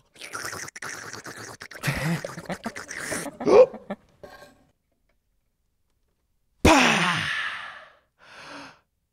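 Gulping water, then a short sharp gasp as the breath is taken and held, a couple of seconds of silence, then a sudden long 'ahh' falling in pitch as the held breath is let out: the drink-water-and-hold-your-breath cure for hiccups. A faint breath follows near the end.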